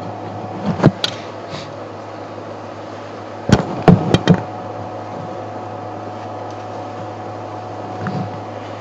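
Sharp wooden knocks as an elephant works a large branch to strip its bark: two about a second in, then a quick cluster of four or five about three and a half seconds in, over a steady low hum.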